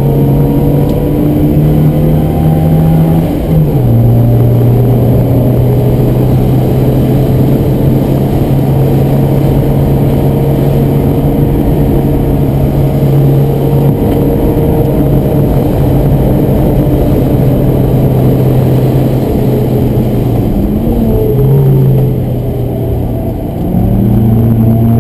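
Ford Escort Mk1 1100's four-cylinder engine heard from inside the cabin, running hard around a track. Its note steps down once a few seconds in, and near the end it dips and wavers briefly before coming back up to full power.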